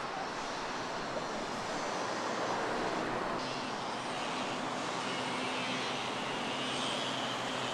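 Jet aircraft flying overhead: a steady, broad rushing engine noise, with a faint whistling tone in the second half.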